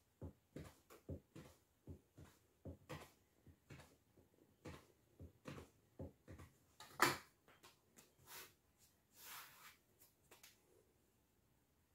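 Metal knife blade chopping a roll of pastry dough into pieces, tapping faintly on the tabletop about three times a second, with one louder knock about seven seconds in. A couple of brief soft rustles follow before it goes quiet near the end.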